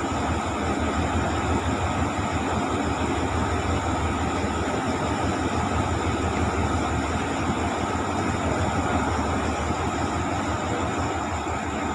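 Hitachi diesel-electric locomotive idling, a steady low engine hum.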